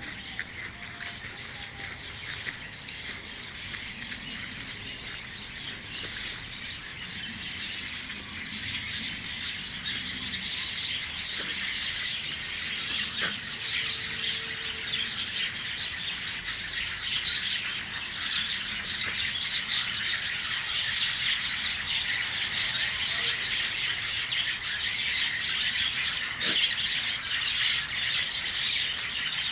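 A flock of budgerigars chattering in an aviary: a dense, continuous mass of small chirps and warbles that grows steadily louder toward the end.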